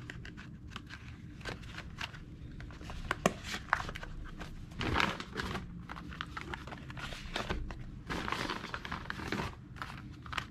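Cardboard cartridge boxes of 7.62x39 ammunition being handled and packed tightly into a steel .50 cal ammo can. Cardboard scrapes and rustles as boxes slide against each other, with a few sharp knocks, the sharpest a little past three seconds in.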